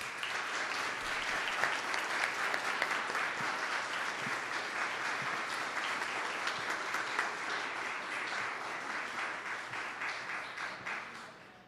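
Audience applauding, a steady run of many hands clapping that fades out near the end.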